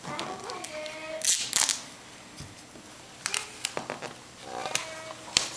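Duct tape being pulled off the roll in two short, loud rips about a second and a half in, followed by a scatter of clicks and taps as the tape is handled and pressed down onto cardboard.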